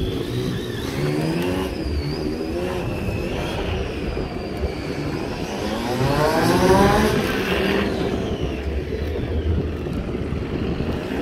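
Triumph Street Triple 675's three-cylinder engine running as the motorcycle rides a cone course, its pitch dipping and rising with the throttle; it revs up about six seconds in, then eases off.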